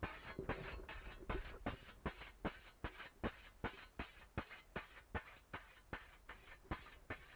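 Scythe stone (whetstone) stroked along a scythe blade to hone its edge: an even run of quick scraping strokes, a little under three a second.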